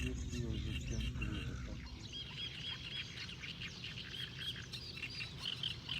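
Small birds singing in quick repeated chirps, starting about two seconds in. A low rumble fills the first two seconds.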